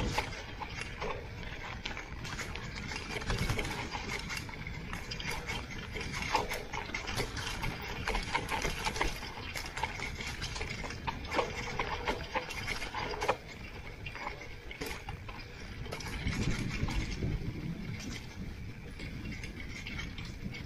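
Electric mountain bike rattling and knocking as it rolls down rough grassy ground: frequent sharp knocks from the bike over a steady rush of tyre and wind noise, with one harder knock about two-thirds of the way through.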